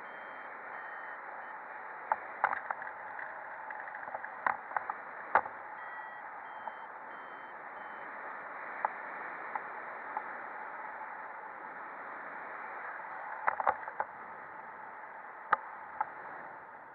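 Steady rushing of airflow past the camera of a paraglider in flight, with scattered sharp clicks and ticks, several in quick clusters.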